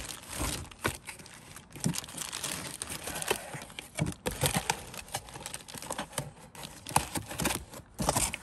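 Plastic bag crinkling and cardboard box flaps rustling as brake rotors are handled in their packaging, with scattered light knocks and clicks.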